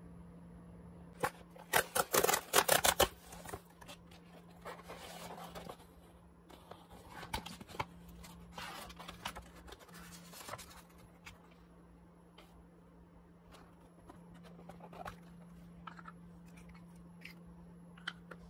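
A cardboard jewelry mailer box being torn open along its tear strip, a quick run of loud rips about a second in, followed by paper inserts rustling and smaller crinkles and clicks as the contents are unpacked. A steady low hum sits underneath.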